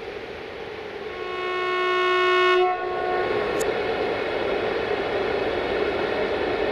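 Horn of a 060-EA electric locomotive sounding for about a second and a half, growing louder and then cutting off suddenly. The steady rumble of the approaching train follows.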